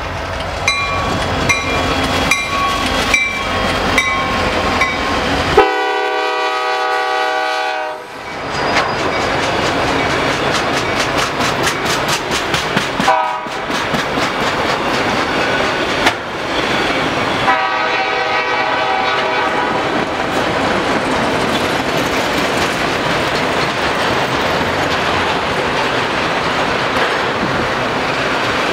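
A slow CSX freight train, led by an SD70MAC, passing close by. A bell strikes about every two-thirds of a second for the first few seconds. The locomotive horn sounds one long blast about six seconds in and a shorter, fainter one around eighteen seconds in, over the steady rumble and clickety-clack of the empty autorack cars' wheels on the rail.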